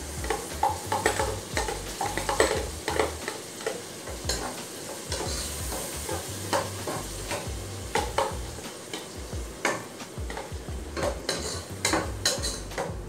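Metal ladle stirring and scraping in a pot of carrots and potatoes as tomato sauce goes in. The sauce sizzles under irregular clinks and scrapes of utensil against the pot.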